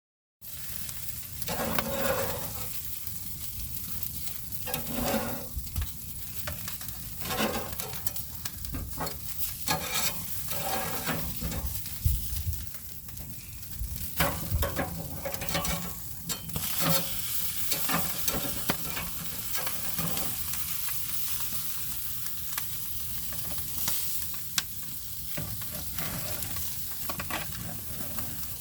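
Food sizzling as it cooks, a steady frying hiss broken by frequent short clicks and scrapes of a cooking utensil.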